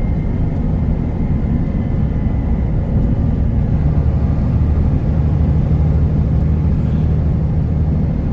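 Steady engine and road drone heard inside the cab of a Kenworth T360 concrete agitator truck cruising on the motorway, a low pitched hum that swells slightly about three seconds in.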